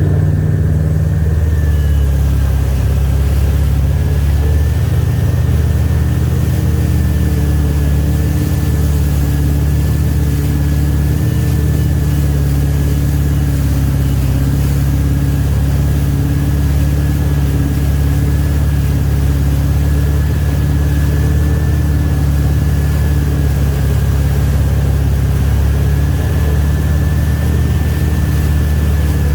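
Wake boat's engine running steadily, a loud, even low hum with a faint high whine held at a constant pitch.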